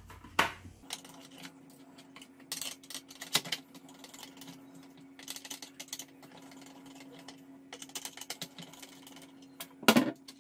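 Small clicks and scrapes of a screwdriver working the screw terminals of a plastic irrigation controller, coming in several short clusters, with a louder knock near the end. A steady low hum runs underneath from about a second in.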